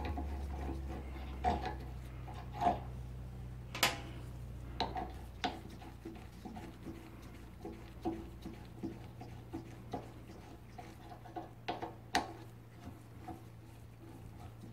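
Irregular small metallic clicks and clinks as a motorcycle brake caliper and its small parts are handled by gloved hands, the sharpest taps about four seconds in and near twelve seconds, over a low steady hum.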